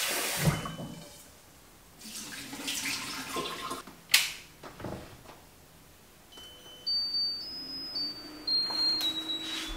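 Kitchen tap water running into a pot as rice is rinsed at the sink, followed by a sharp click about four seconds in. Near the end, a run of high electronic beeps stepping in pitch as the rice cooker is set going.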